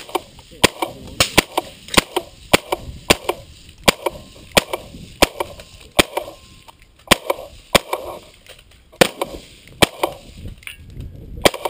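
Suppressed 11.5-inch-barrel AR-15 short-barrelled rifle firing a string of about eighteen shots, mostly one every half second to second, with a longer gap just before the end. Each shot is a sharp crack with a short echo trailing it.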